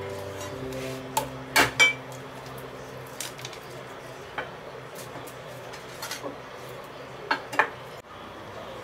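Chinese cleaver knocking against a round wooden chopping block while garlic or ginger is cut: a handful of sharp, separate knocks spread over several seconds, the loudest pair about a second and a half in.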